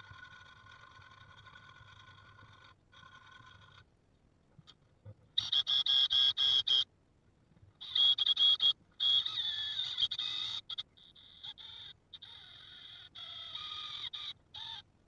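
Drill press boring out the stripped knob hole in the cast-iron body of a Stanley No. 45 combination plane. A faint steady whine for the first few seconds, then the bit squeals high-pitched in the metal in several short runs, each starting and stopping abruptly, with the pitch wavering near the end.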